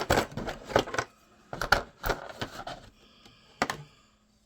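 Plastic model-kit parts being handled: a quick run of sharp clicks and crackles for about three seconds, then one more click near the end.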